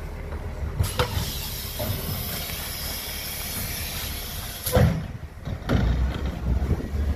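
Side-loading recycling truck's suction-cup bin lifter raising and tipping a wheelie bin: a steady hiss for about four seconds between a clunk about a second in and louder clunks near the end, over the truck's diesel engine running.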